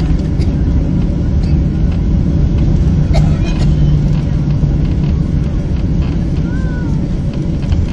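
Steady low rumble of engine and airflow noise heard inside the cabin of a Boeing 767-300ER, low over the runway in the final seconds before touchdown.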